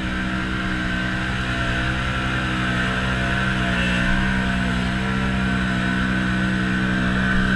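Can-Am Maverick Sport XMR side-by-side's engine held at high, steady revs as it ploughs through a deep mud hole, wheels churning.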